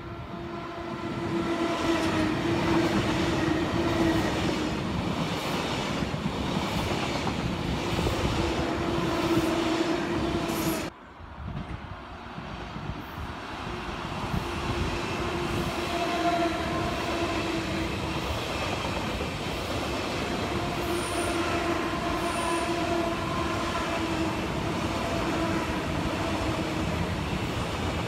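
SBB RABDe 500 ICN tilting electric trains passing: steady rolling and wheel noise with a pitched whine. The sound drops out suddenly about eleven seconds in, then picks up again as a coupled pair of units rolls by.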